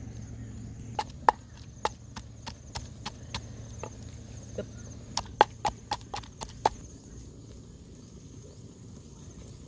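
Wooden pestle pounding chillies in a mortar: a run of sharp knocks, about three a second, that stops about seven seconds in.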